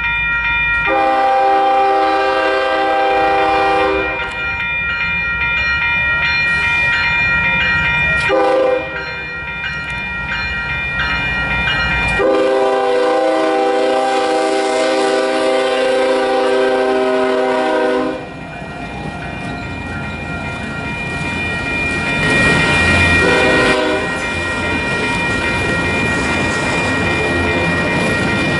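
Freight locomotive air horn sounding: a long blast about a second in, a short one near the middle and a long blast of several seconds after it. Between and after the blasts comes the steady rumble and wheel noise of the passing freight train.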